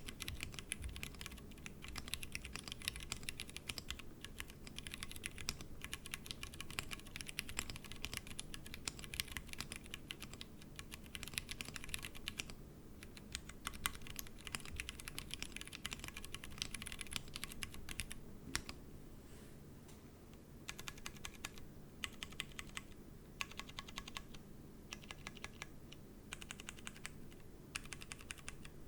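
Typing on a Tofu60 mechanical keyboard with stock Cherry MX Brown tactile switches, set on a deskmat: fast, continuous key clicks. After a short pause about 19 seconds in, the strokes become sparse, single presses of the modifier keys.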